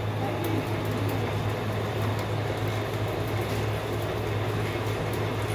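A die-head TMT bar threading machine running: a steady low electric-motor hum under a constant whir of the spinning chuck and gearing, with faint light ticks.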